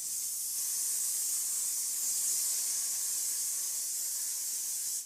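A steady, high hiss that begins and cuts off abruptly.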